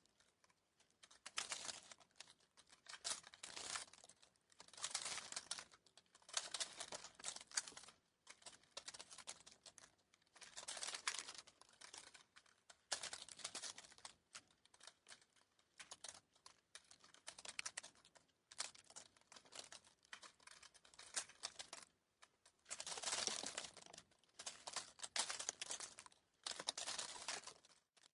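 Dry rustling and crackling that comes in irregular clusters of a second or two, separated by short pauses.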